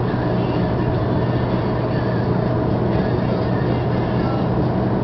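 Steady road and engine noise heard inside a car's cabin while it cruises along a highway, with a constant low hum.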